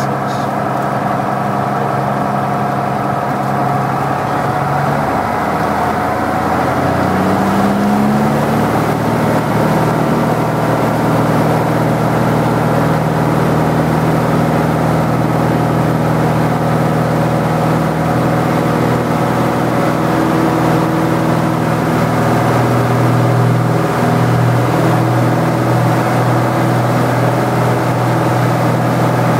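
Single-engine light plane's piston engine and propeller heard from inside the cabin, running at low power and then opening up to full takeoff power about five to eight seconds in, rising in pitch, then running steady and loud through the takeoff.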